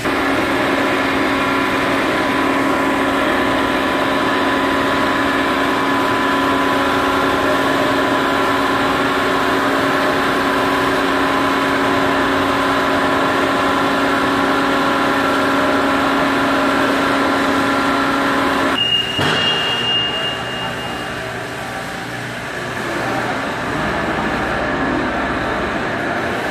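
Hydraulic power unit of a scissor car lift, an electric motor driving a pump, running with a loud, steady hum of several fixed tones. It cuts off suddenly with a click about two-thirds of the way through. A brief high whine and a softer rushing noise follow.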